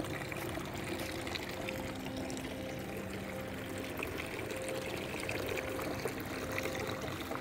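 Water pouring from the spout of a tiered bowl fountain into the basin below, a steady splashing trickle.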